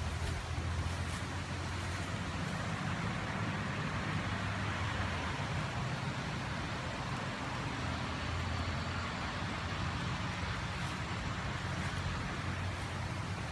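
Wind gusts from Hurricane Irma blowing steadily, a broad rushing hiss over a low rumble of wind buffeting the microphone.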